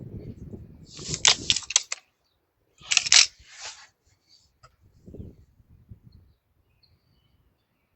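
Gamo Whisper .22 break-barrel air rifle being handled between shots: a quick run of metallic clicks about a second in, then a louder sharp snap about three seconds in. This fits the barrel being broken open to cock the spring and snapped shut after loading a pellet.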